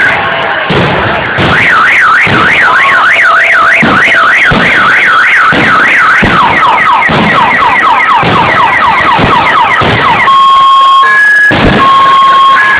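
A car alarm going through its cycle: a fast up-and-down warbling wail, then a run of quick falling chirps, then steady beeps alternating between two pitches about ten seconds in. Repeated booms of fireworks bursting sound through it.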